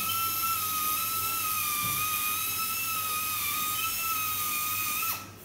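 Dental handpiece polishing a dog's teeth, running with a steady high-pitched whine that wavers slightly in pitch, then cutting off suddenly about five seconds in.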